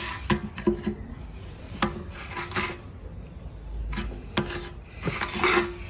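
Hand tools scraping and clinking on the car's metal parts, about half a dozen short, irregular strokes with a faint metallic ring.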